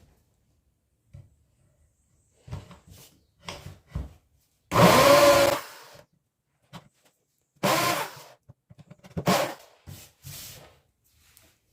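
A small power-tool motor runs in several short bursts, the longest about a second and a half, with shorter spurts and knocks between them.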